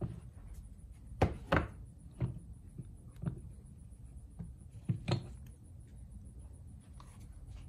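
Sharp knocks and clicks of starter motor parts being handled and set down on a hard surface: about six separate knocks, the loudest a pair about a second in and another pair near five seconds.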